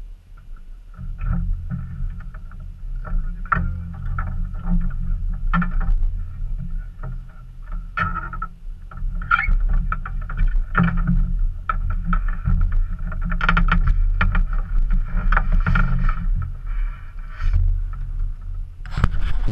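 Wind buffeting the microphone of a camera mounted outside a parked light aircraft, an uneven low noise that sets in about a second in, with scattered clicks and knocks.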